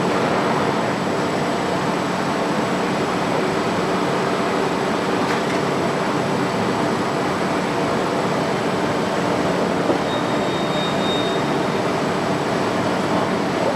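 WMW Niles DP1 facing lathe running steadily, a constant mechanical noise with a faint hum. A brief high whine comes in about ten seconds in.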